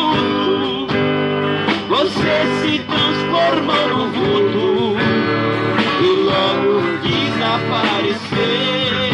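Live sertanejo trio playing a slow 'modão' ballad, with guitar and a sung or played melody line over it.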